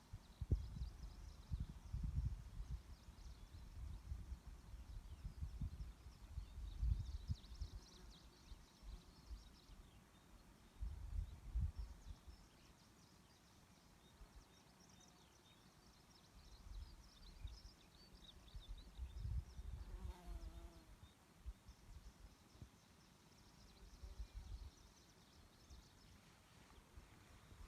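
Wind gusting against the microphone in repeated low rumbles, with faint high chirping of small birds or insects behind it.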